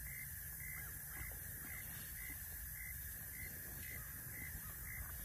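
Dexter cow grazing at close range, tearing and chewing weeds and grass in short irregular crunches. Under it, a steady high chirp repeats a little under twice a second.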